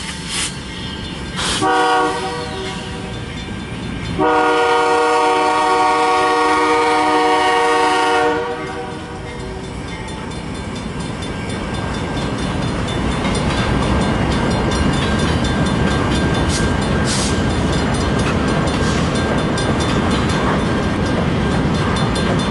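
Freight train's diesel locomotive horn sounding a short blast about two seconds in, then a long blast of about four seconds. Then the locomotives and freight cars rumble past, the sound growing steadily louder with the rattle of the cars.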